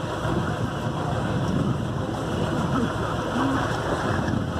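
Steady wind and choppy sea noise aboard a fishing boat, with wind noise on the microphone.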